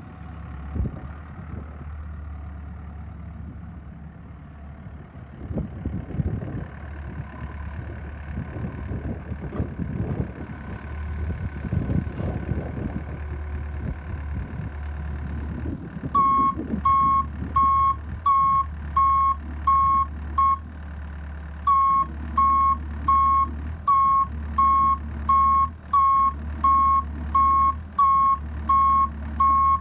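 Takeuchi TB180FR compact excavator's diesel engine running steadily, with irregular scraping and knocking as the bucket works a gravel pile. About halfway through its travel alarm starts beeping, one high beep about every two-thirds of a second with one short break, as the machine tracks.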